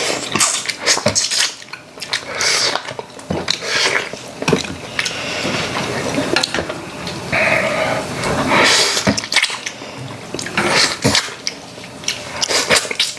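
Spoons and chopsticks clinking and scraping against bowls while people eat, in many short, irregular clicks.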